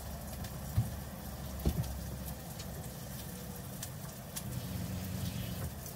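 Camper van's water pump running with a low, steady hum as the water is turned on at the sink. Two light clicks come in the first two seconds.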